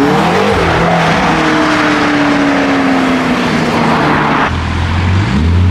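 Loud sports car exhaust as a car accelerates away, the engine pitch rising, then held and slowly falling as it passes. About four and a half seconds in the sound changes abruptly to the deeper note of another car's engine, which rises briefly near the end.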